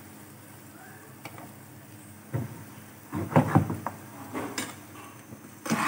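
Metal spatula scraping and knocking against a frying pan as sliced onions and bitter gourd are stirred, over a faint steady sizzle of frying. The stirring strokes come in a quick cluster from about two seconds in.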